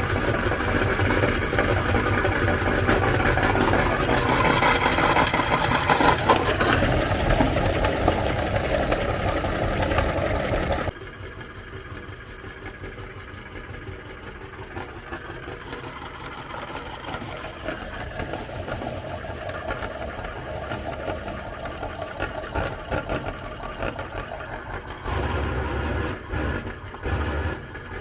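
Electric meat grinder running while it grinds cookies, a steady motor sound with grinding noise. About eleven seconds in it suddenly gets much quieter and keeps running.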